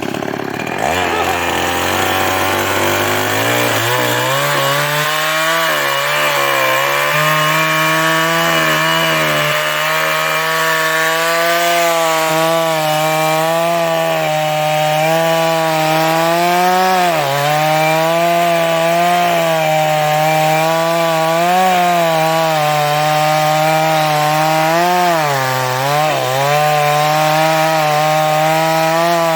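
New West 588 Chinese two-stroke chainsaw cutting into a teak trunk under load. The engine runs steadily at high speed, its pitch sagging and recovering several times as the chain bites, with a deeper dip about two thirds of the way through.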